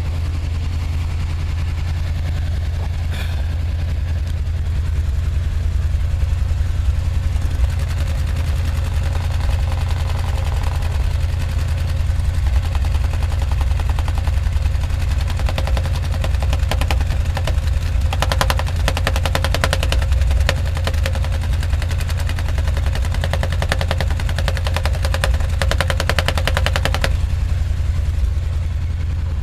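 Chevy 350 small-block V8 running with a steady low exhaust drone and a fast string of sharp ticks or pops, loudest from about 15 to 27 seconds in. The engine has a persistent misfire.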